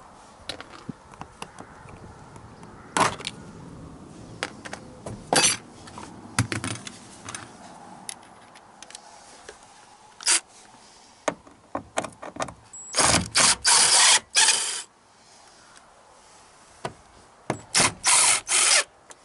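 Scattered clicks and knocks of plastic door trim being handled. Then a Ryobi cordless driver runs in short bursts about two-thirds of the way in and twice more near the end, backing screws out of a pickup's door trim panel.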